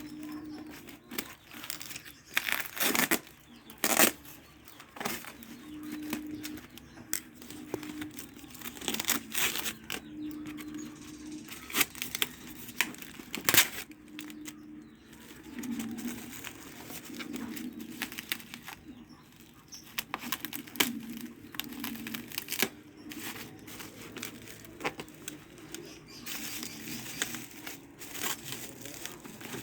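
Packaging being torn open and crinkled while a parcel is unboxed: irregular crackling and rustling with a few sharper rips.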